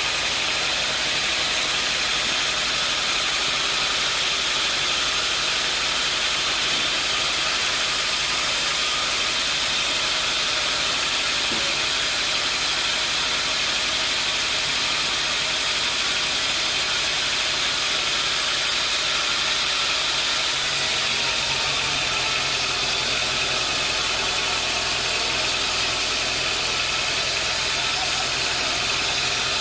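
Sawmill machinery running steadily: a continuous mechanical drone with a hiss, at an even level. A lower hum joins in about 21 seconds in.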